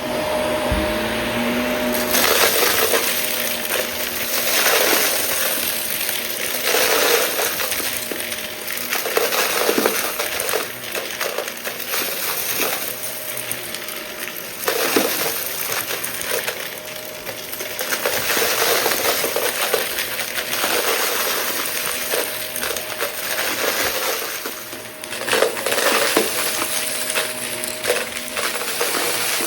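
Shark vacuum cleaner running with a steady motor whine, sucking up a small mess of debris that clicks and rattles through the nozzle. The sound surges every two to three seconds.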